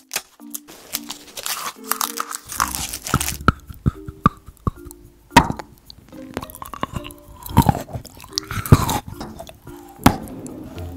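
Close-miked ASMR eating: sharp bites and crisp crunching and chewing of hard novelty foods, over soft background music of short repeated low notes.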